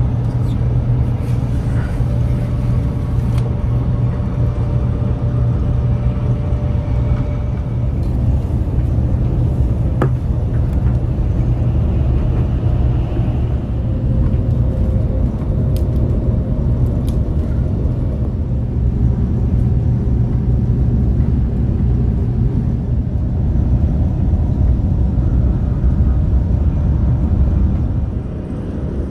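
Steady low rumble of a KTX-Cheongryong high-speed train running, as heard inside the passenger cabin, with a single light click about ten seconds in.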